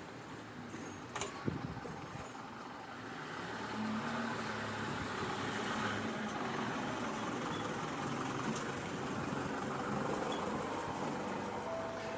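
Steady road-traffic noise, a little louder from about four seconds in. Near the end a railway level-crossing warning bell starts ringing.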